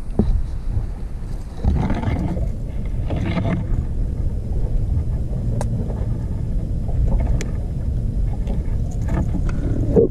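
Wind rumbling steadily on the microphone, with scattered light clicks and knocks and brief rustling as gear is handled in the boat.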